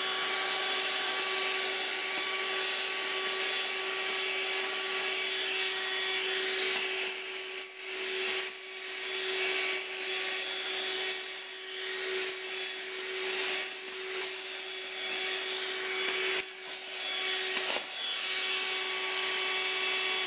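Dirt Devil AccuCharge BD10045RED cordless hand vacuum running steadily with a constant whine. From about eight seconds in, irregular clicks and rattles come through as split green peas are sucked up off a tile floor.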